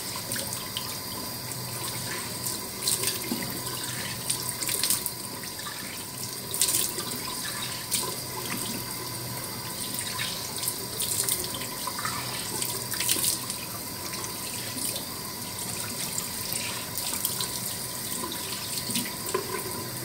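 Tap running into a bathroom sink, with irregular splashes as a mud face mask is rinsed off by hand.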